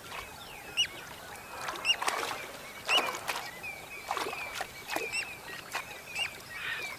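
Waterbirds calling at a shallow lagoon: short, hooked calls repeated about once or twice a second, with a few sharp splashes in the water.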